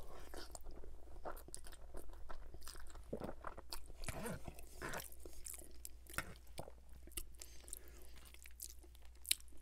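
Close-miked chewing of a mouthful of spaghetti bolognese, with many short wet mouth clicks and smacks.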